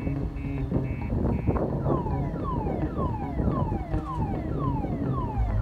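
Car alarm cycling through its tones: a string of rapid high beeps, then, from about two seconds in, a falling whoop repeated about twice a second.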